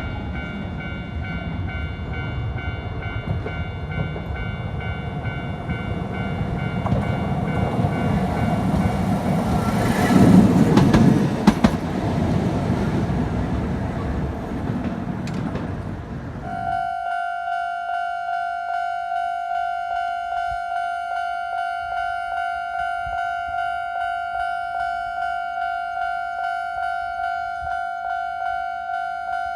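A train passing a Japanese level crossing, its wheel and running noise building to a peak about ten seconds in, with the crossing's electronic warning bell ringing beneath it. About halfway through the train noise cuts off suddenly and the crossing bell rings on alone at about two strikes a second.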